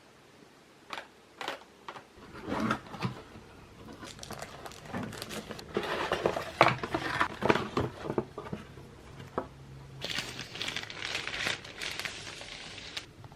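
Parts of a mechanical keyboard kit being handled: plastic packaging crinkling and rustling, with irregular small clicks and taps. A longer spell of dense crinkling comes near the end.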